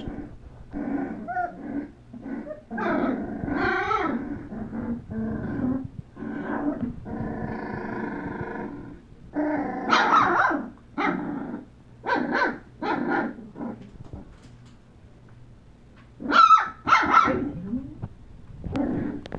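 Puppies play-fighting, making a string of short growls and high yips with one longer, steadier call about eight seconds in; the loudest yips come about ten seconds in and again near the end.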